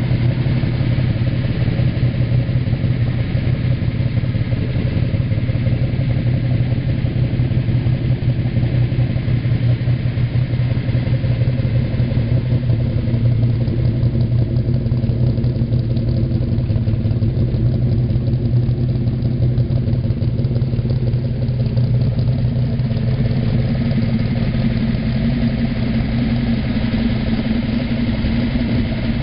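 1978 Dodge Lil' Red Express pickup's 360 V8 idling steadily through its chrome vertical exhaust stacks.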